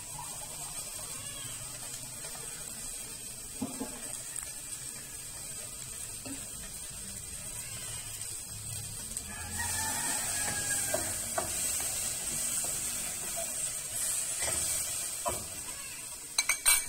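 Garlic and onions frying in a little oil in a stainless steel saucepan: a soft, steady sizzle that grows louder for a few seconds in the middle. A few light clicks and knocks come near the end.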